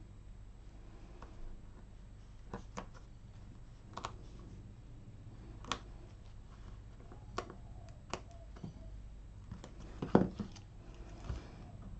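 Scattered light clicks and taps of a pointed craft tool, paper and fingers on a craft mat as small foam adhesive squares are picked off their sheet and pressed onto a paper strip, with one louder knock about ten seconds in.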